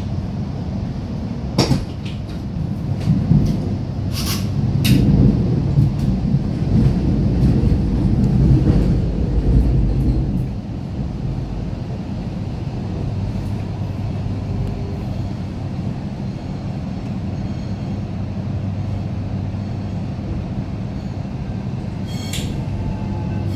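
Electric suburban train at a station platform: a steady electrical hum, with a louder low rumble that swells over the first ten seconds and then drops away. A few sharp clicks come near the start.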